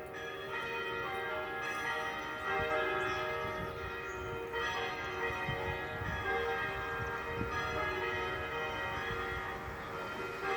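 Church bells pealing, many bells' strokes overlapping into a continuous ringing, with fresh strikes coming every second or two.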